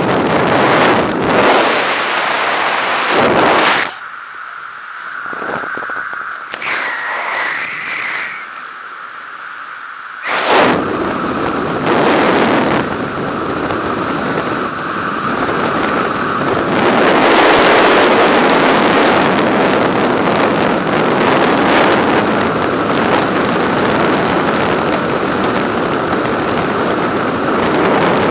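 Wind buffeting a skydiver's camera microphone. It comes in gusts at first, then turns into a continuous loud rush from about ten seconds in.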